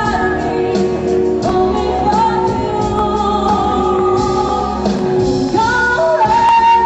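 A woman singing live in front of a band with drums, holding long notes over steady backing.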